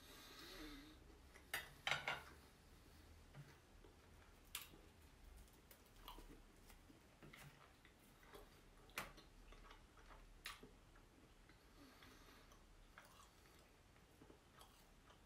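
A person eating roasted pork and fries close to the microphone: quiet chewing with scattered sharp clicks and taps, the loudest a close pair about two seconds in.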